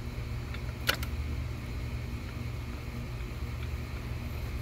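One sharp click about a second in, with a few fainter ticks, from hands working at the plastic wire-harness connector on the ignition coil pack to release its lock. A steady low rumble runs underneath.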